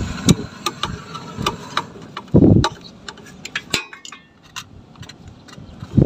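Screwdriver working the wire terminal screws on an Ariston water heater's thermostat: a scattered string of small metallic clicks and taps, with one dull thump about two and a half seconds in.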